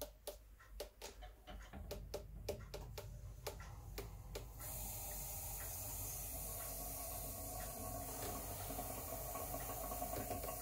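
Reverse-osmosis unit filling after its inlet valve is opened: irregular light clicks for the first few seconds, then a steady hiss starts suddenly, as air is pushed out through the membranes to the drain line.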